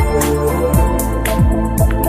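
Intro music: an electronic track with held keyboard chords over a steady drum beat.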